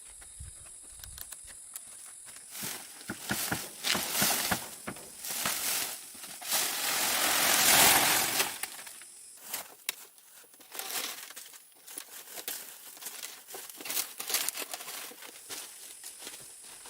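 Irregular rustling and crinkling of material being handled, with a longer, louder rustle about seven to eight seconds in.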